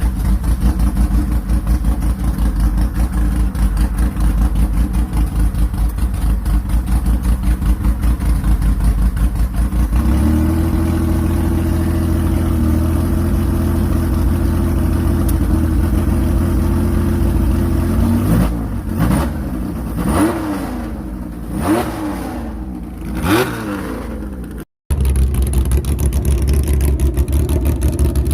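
Porsche 911 SC's air-cooled flat-six idling with an uneven, pulsing beat, then settling to a steadier, slightly higher idle about ten seconds in. It is then blipped several times, with quick rises and falls in revs. After an abrupt cut it idles again.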